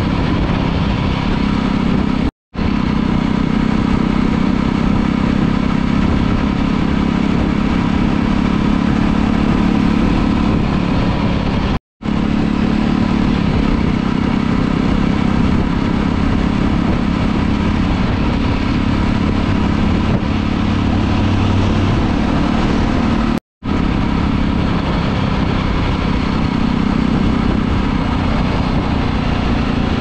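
Jawa Classic's single-cylinder engine and exhaust running steadily while the motorcycle is ridden on the road, heard from the rider's position. The sound cuts out abruptly three times, about 2.5, 12 and 23.5 seconds in, and resumes at once.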